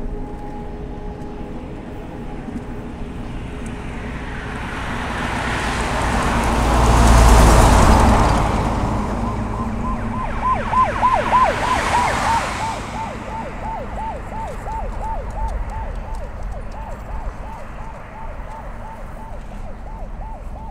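A road vehicle passes close by on the highway, swelling to its loudest about seven seconds in and then fading, with a second, smaller pass-by a few seconds later. From about ten seconds on, a short, high, chirping tone repeats quickly, about three times a second, in the manner of a siren's yelp.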